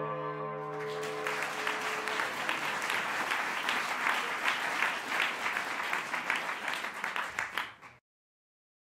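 Audience applauding, the clapping building up about a second in as held music notes fade away, then cutting off abruptly near the end.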